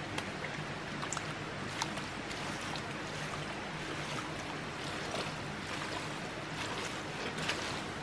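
Steady water noise with scattered small splashes and clicks.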